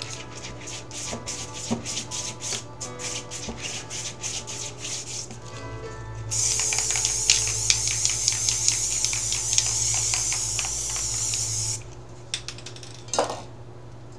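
Aerosol spray-paint can spraying in a steady hiss for about five seconds, starting roughly midway. Before it comes a fast run of clicking and rubbing as the paint is worked by hand, with soft piano music underneath throughout.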